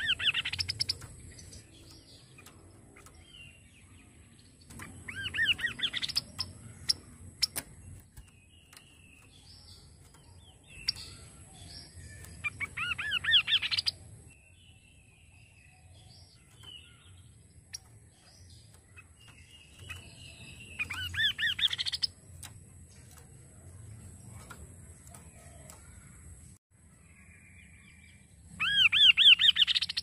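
Kaso-kaso (chestnut-capped babbler) singing: five loud phrases, each a quick run of notes climbing in pitch and lasting about a second and a half, repeated every seven seconds or so, with soft scattered chirps between them.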